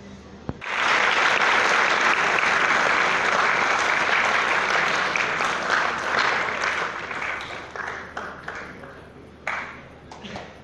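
Audience applause, starting abruptly about a second in, full and dense for about five seconds, then thinning into scattered single claps that die away near the end.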